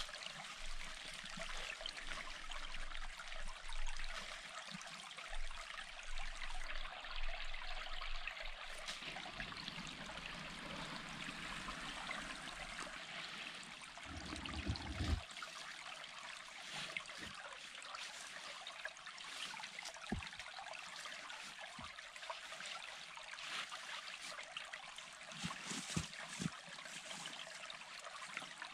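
A small forest stream trickling steadily, with a brief low rumble near the middle and a few sharp knocks of stones being fitted into a dry-stone wall later on.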